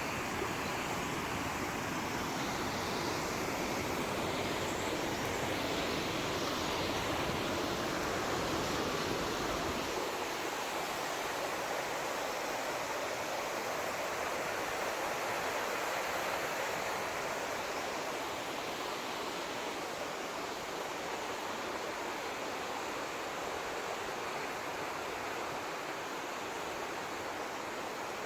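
Steady rushing noise of flowing water. A low rumble under it drops away about ten seconds in.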